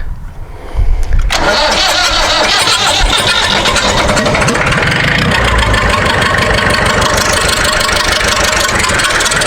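Freshly rebuilt International Harvester 444 tractor engine catching about a second in, then running steadily. This is a brief first run to settle the valve train before the valves are adjusted.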